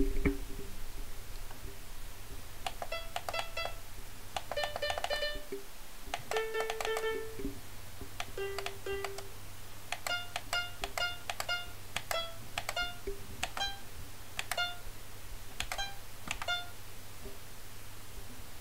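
Short electronic notes from music software played through a laptop speaker, triggered by tapping the computer keyboard: a few quick groups of notes, then single notes at about two a second from about ten seconds in.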